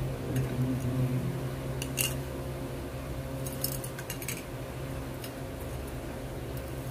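Light metallic clinks of a metal spoon and a gold chain against a ceramic bowl of soapy water: one about two seconds in and a short cluster near four seconds. A steady low hum runs underneath.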